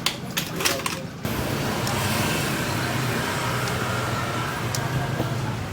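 Honda Vario Techno 110 scooter running steadily. There are a few clicks and a brief dip in the first second, then a steady running sound with a low hum.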